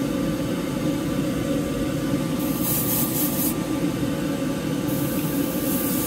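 Airbrush spraying acrylic paint in short hissing bursts, a tack coat going onto a test spoon: one burst of about a second a little over two seconds in, another starting about five seconds in. Under it, the steady whir of the spray booth's exhaust fan.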